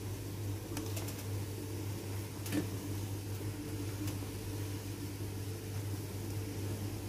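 A steady low hum runs throughout, with a few faint clicks and scrapes of a plastic spatula against an aluminium pot as cooked glutinous rice is stirred; the clearest click comes about two and a half seconds in.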